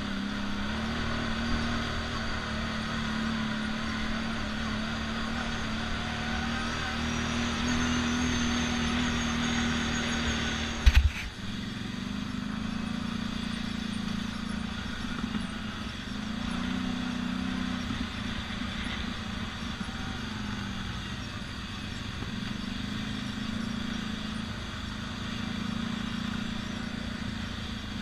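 ATV engine running under way on a dirt trail, a steady note with a sharp click about eleven seconds in; after it the engine note rises and falls with the throttle.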